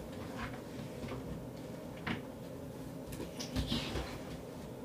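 Quiet room with a few soft knocks and rustles of things being handled, once about two seconds in and a cluster between three and four seconds.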